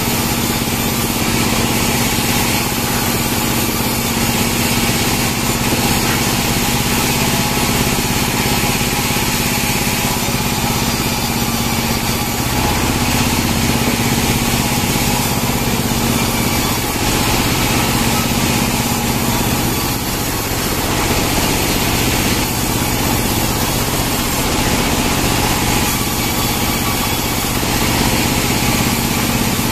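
Engine-driven sawmill saw running steadily, a constant engine drone under the hiss of the blade cutting Merkusii pine, the hiss swelling and easing as boards and logs go through.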